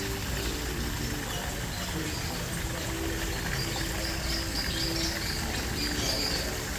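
Steady background of running water, with small birds chirping now and then, mostly in the second half.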